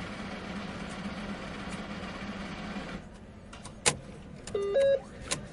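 Automated teller machine at work: a steady mechanical whirr with a low hum for about three seconds, which stops. Then a sharp click, a loud two-note electronic beep stepping up in pitch, and another click.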